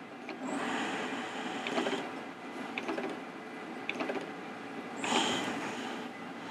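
Leica Jung 820 Histocut rotary microtome being cranked through cutting strokes on a paraffin block, its mechanism whirring twice, about half a second in and again near five seconds, with a few light clicks in between.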